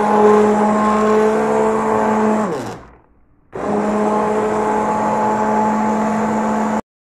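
Hand-held immersion blender's motor running steadily with a whir as it purées soup in a steel pot. A little under three seconds in it is switched off and winds down in pitch, then it is switched back on about half a second later and runs until it cuts off sharply near the end.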